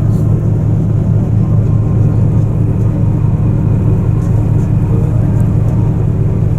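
Icebreaker's engines running steadily, a loud, even low hum.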